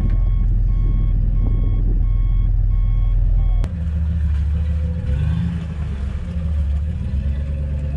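A vehicle's electronic warning beeper sounds a run of about six short beeps, roughly one every half-second, over a low engine rumble. The beeping stops with a sharp click about three and a half seconds in. After that an engine keeps running and revs briefly about five seconds in.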